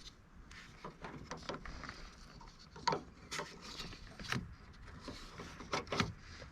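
Irregular clicks, taps and rubbing as door trim parts and clips are handled and fitted on a car door, about ten sharp knocks scattered through the few seconds.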